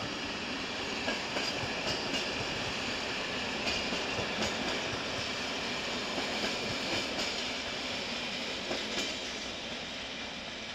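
Passenger coaches of an electric-hauled train rolling steadily past, with a steady hiss of wheels on rail and scattered clicks of wheels over rail joints. It grows slightly quieter near the end as the train moves away.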